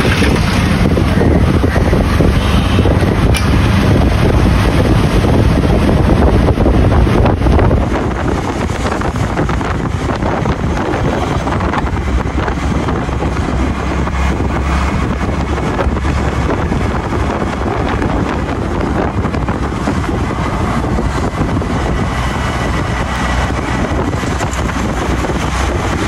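Steady rushing wind noise on the microphone over outdoor background noise, dropping slightly in level about eight seconds in.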